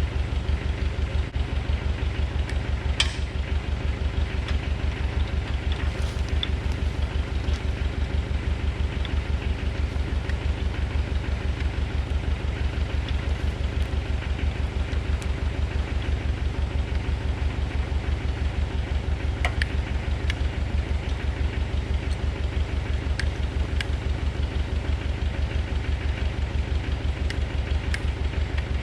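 Tractor backhoe engine idling with a steady low throb, with a few faint clicks or taps over it.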